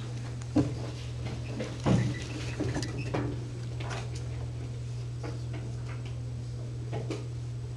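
Classroom room tone: a steady low hum with scattered small knocks and rustles, a few louder ones in the first three seconds.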